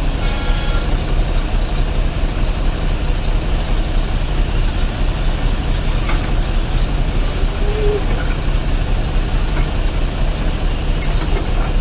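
Kobelco SK140HD excavator's diesel engine running steadily under working load with a deep rumble, as the machine digs and swings. A brief high squeal in the first second and a couple of faint clicks.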